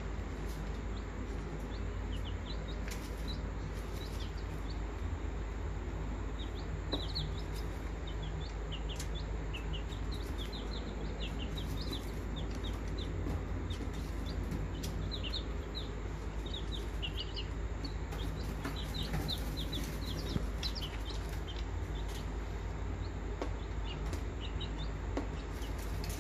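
Pigeon squabs peeping: many short, high squeaks in quick runs, over a steady low hum.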